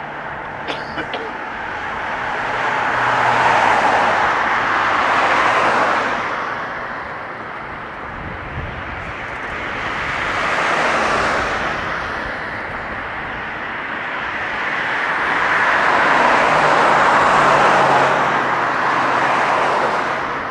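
A Boeing 787-9's Rolls-Royce Trent 1000 turbofans at takeoff thrust: a loud jet roar as the airliner rolls, lifts off and climbs out. The roar swells and fades three times.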